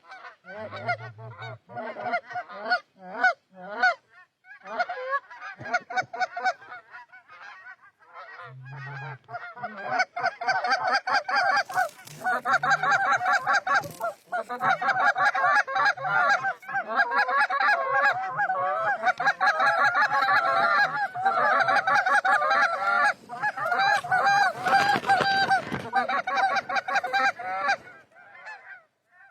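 Goose honking: rapid, overlapping honks and clucks, scattered for the first ten seconds, then a dense, continuous chorus until shortly before the end. A brief burst of rushing noise comes about twenty-five seconds in.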